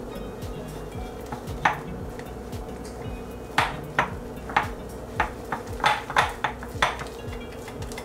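Wire whisk clinking against a glass bowl as it beats egg yolks into a dry, stiff flour-and-sugar mixture. The clinks come at irregular intervals, most of them bunched in the second half.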